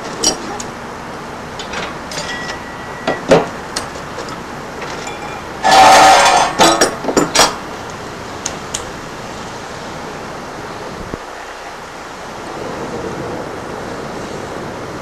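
Metal parts and tools being handled on a workbench: scattered knocks and clinks, with one loud rattling clatter about six seconds in and a few sharp clanks just after it, over a steady background hiss.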